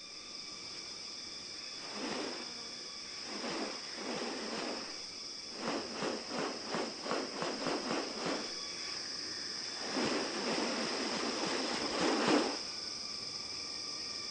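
Rainforest insects droning steadily at a high pitch, overlaid by intermittent noisy rasping bursts: a couple between about two and five seconds in, a run of about three quick rasps a second in the middle, and longer rasping stretches from about ten to twelve seconds in.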